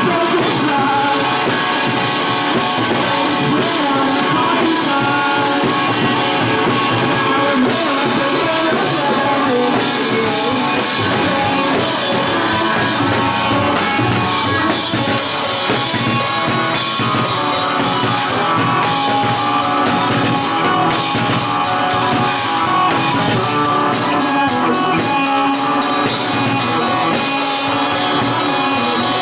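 Small rock band playing live: drum kit and guitar, with the drums coming through more plainly in the second half.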